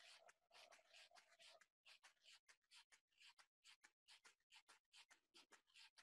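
Near silence: faint scratchy rustling that keeps cutting in and out, with sudden dropouts to dead quiet.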